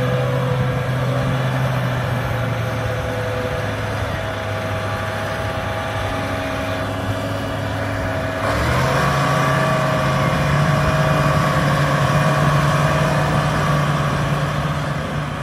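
Engine of a 2017 John Deere 8345RT track tractor, a 9.0-litre six-cylinder diesel, running steadily as the tractor drives slowly on gravel. A little over halfway through, the engine note steps up in pitch and gets louder, then holds there.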